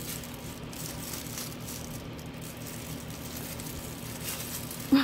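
Faint crinkling and rustling of a small paper wrapper being unwrapped by hand, over a steady low room hum.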